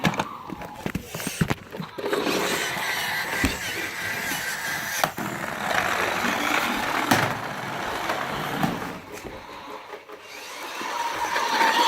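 Plastic toy cars running across a hard floor: a few sharp clicks and knocks in the first two seconds, then a steady rough rolling noise that dies away near the end.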